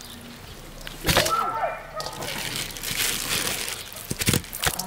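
Wet chunks of raw fish being handled and dropped into a stainless steel bowl: sharp wet slaps and knocks about a second in and twice more near the end.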